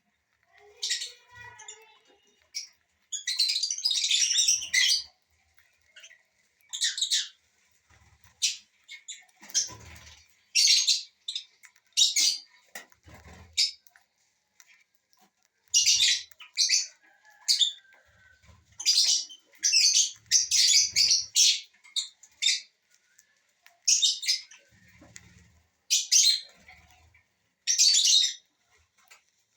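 Small parrots such as lovebirds, cockatiels and Indian ringnecks chirping and screeching in short, harsh, high bursts that come in irregular clusters, with a few soft low thumps between them.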